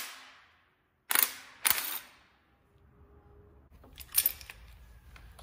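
Cordless impact wrench hammering in short bursts on the crankshaft pulley bolt of a Ford 3.5 EcoBoost V6: two bursts about a second in, half a second apart, and a third at about four seconds.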